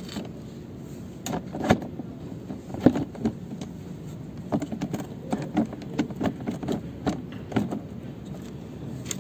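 Hard plastic parts of a kids' ride-on car knocking and clicking irregularly as a black plastic arm is worked up and down on a metal shaft under a ball bearing; the clicks come faster about halfway through.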